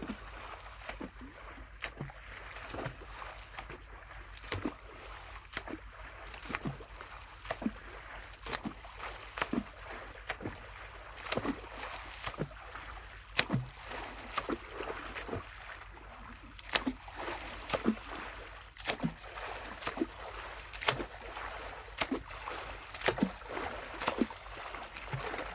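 Sharp light knocks and ticks, about one or two a second, over a faint steady wash of water.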